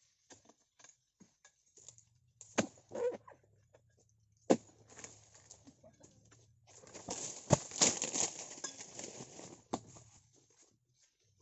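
Long harvesting pole working in the crown of an oil palm: a few sharp knocks and cracks, then a stretch of rustling and scraping about seven seconds in.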